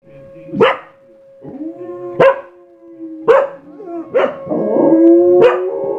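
Dogs barking and howling: five short sharp barks, with a drawn-out howl between the second and third, and a long howl rising in pitch from about four and a half seconds in.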